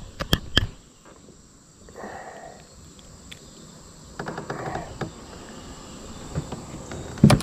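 Insects trilling steadily in a thin, high-pitched drone. A couple of sharp clicks come near the start, and a loud knock comes just before the end.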